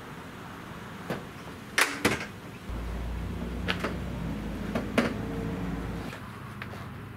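Framed solar panel knocking against the caravan body and roof as it is lifted up overhead: a few sharp knocks, the loudest two close together about two seconds in. A low steady rumble starts just before three seconds and stops about three seconds later.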